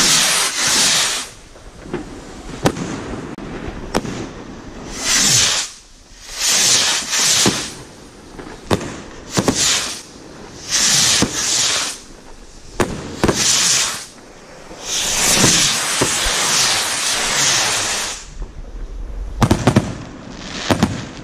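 Firework rockets launching one after another, each with a rushing hiss about a second long, among sharp single bangs from thunder rockets and bursts in the air. Near the end comes a quick cluster of loud bangs as the larger 3-inch rockets burst.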